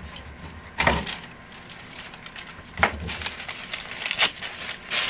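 Handling noises from packing orders at a desk. There is a sharp knock about a second in, another near three seconds, and two more close together near four seconds, with rustling between them.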